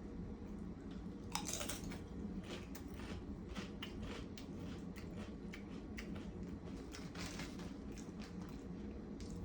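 A person chewing crunchy Doritos tortilla chips: a steady run of crisp crunches, with louder bites about a second and a half in and again around seven seconds in.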